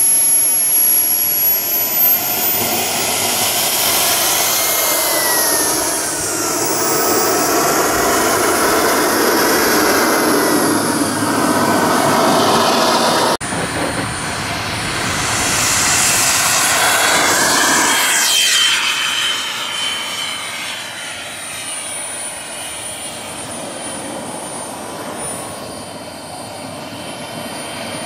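Model jet's Wren 44 Gold turbine running at high power, a loud whine whose pitch rises and wavers as the throttle changes. After an abrupt cut about halfway, the jet passes with a downward sweep in pitch, then grows quieter as it moves away.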